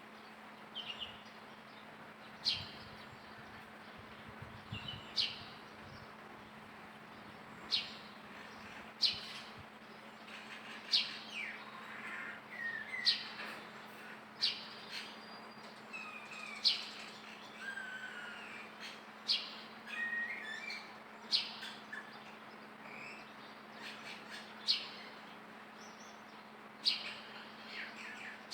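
Short high-pitched chirps repeating about every one to two seconds, with a few brief gliding squeaks between them, over a faint steady hum.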